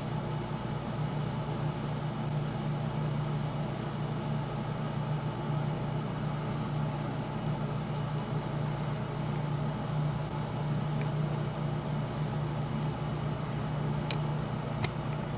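Steady mechanical hum of workshop background noise, with a few light clicks of small parts being handled, one about three seconds in and two close together near the end.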